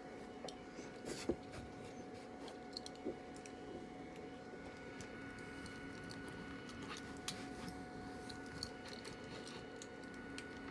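Light clicks and taps of small metal parts being handled as the trailing truck is fitted back onto a tin plate toy locomotive, with one sharper click a little over a second in. A faint steady hum runs underneath.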